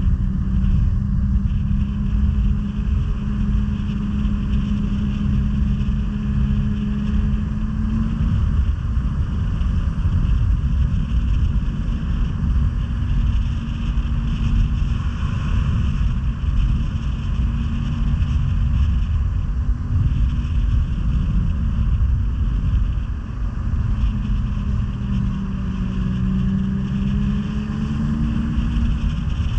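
Snowmobile engine running at a steady trail-riding speed, with track and wind rush. Its drone holds one pitch for the first several seconds, sinks into the rushing noise through the middle, then comes back and rises slightly near the end.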